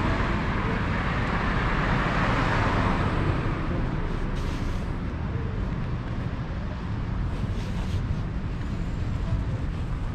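Street traffic: a car's tyre and engine noise passing close at first and fading away about three seconds in, leaving a steady low rumble of road traffic.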